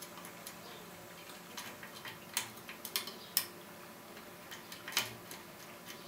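Light, irregular metal clicks of a lock pick working the pins inside a Thirard Federal cylinder held under a tension wrench. The clicks come in small clusters, the sharpest about halfway through and again near the end.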